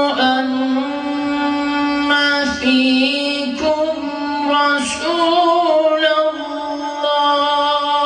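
A man reciting the Quran in the melodic tajwid style, holding long notes and moving between them in ornamented turns, with short breaths between phrases.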